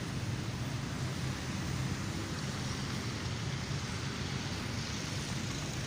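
Steady outdoor background noise: an even hiss over a low, constant vehicle-like hum, with no distinct events.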